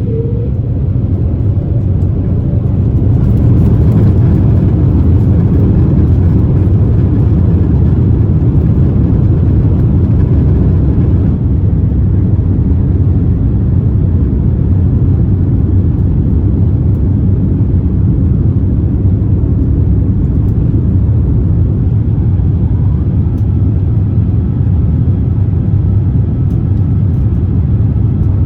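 Steady low rumble of engine and airflow noise inside the cabin of an Airbus A350-1000 airliner in flight, swelling over the first few seconds and then holding level.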